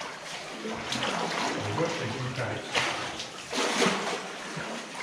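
Oars paddling inflatable rowing boats through still floodwater: a few splashing blade strokes, the strongest about three seconds in and again near four, with water lapping and dripping in between.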